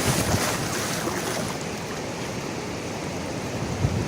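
Surf washing on a sandy beach: a steady rush of water.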